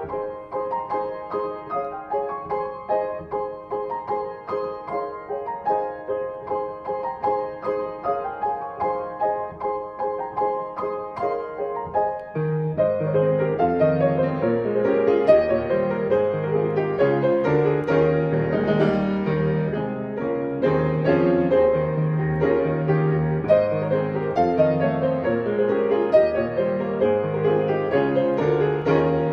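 Instrumental piano music: a gentle run of notes in the middle and upper range, joined about twelve seconds in by a lower bass part, after which it plays fuller and a little louder.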